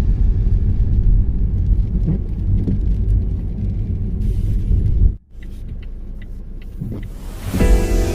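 Car driving on a snowy road, a steady low rumble; it drops away abruptly about five seconds in, leaving a quieter hum with a few faint ticks.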